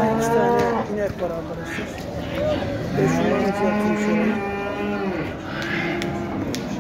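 Cattle mooing: one call in the first second, then a longer low call from about three to five seconds in.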